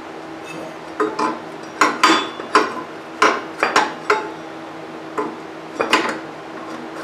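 About a dozen sharp metal clinks and knocks in irregular clusters, starting about a second in and ending about six seconds in, as a steel belt pulley on a riding mower's drive is handled and worked onto its keyed shaft.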